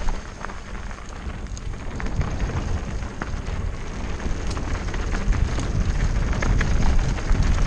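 Wind buffeting the camera microphone on a mountain bike descending a dirt singletrack, a steady low rumble, with the tyres rolling over dirt and small rattles and ticks from the bike.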